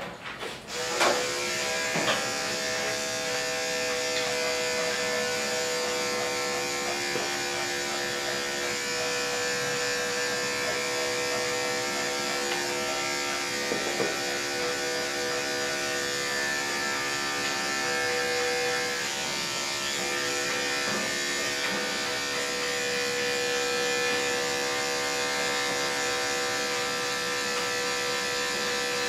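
Electric dog grooming clippers switched on about a second in, then running with a steady motor hum while trimming the dog's face and neck.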